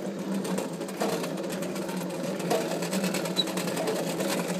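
1955 Doepke Yardbird ride-on train running along its track: a steady drive hum with a light, fast clatter of clicks.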